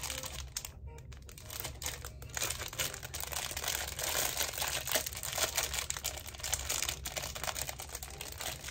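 Plastic packaging crinkling and crackling as a small item is unwrapped by hand, with small clicks and taps among the rustling.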